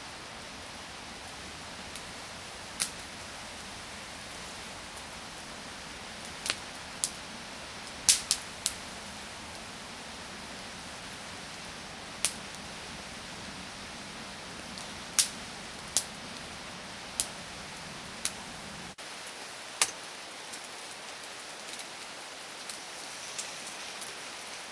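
Wood fire crackling: sharp, irregular pops over a steady hiss.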